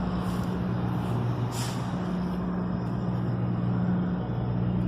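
A steady low machinery hum over an even rushing background, with a brief hiss about a second and a half in.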